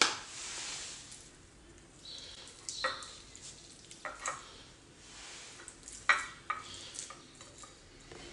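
A metal spoon mashing and stirring soft cheese in a ceramic bowl: soft scraping and squishing, broken by several sharp clinks of the spoon against the bowl, the loudest at the very start and about six seconds in.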